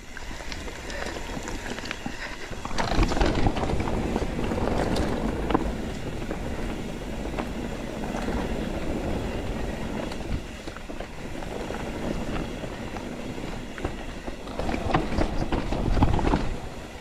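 Mountain bike rolling over rough, stony single track: the tyres crunch and the bike rattles, with irregular knocks. It grows louder about three seconds in and again shortly before the end.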